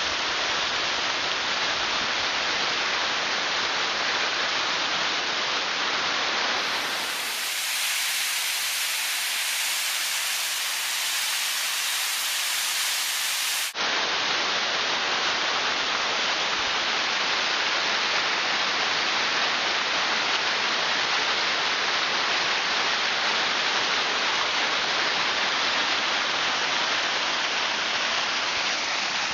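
Waterfall pouring and splashing over rock right beside the microphone: a loud, steady rush of falling water. From about seven to fourteen seconds in, the rush turns thinner and hissier, with little bass, then cuts back suddenly to the full rush.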